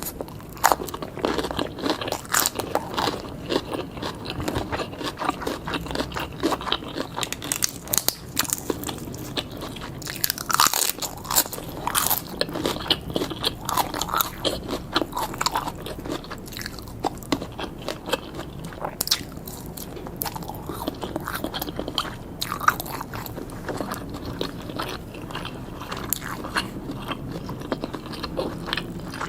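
Close-miked chewing and biting of grilled pork and sausage skewers, with many irregular crunchy clicks and wet mouth sounds.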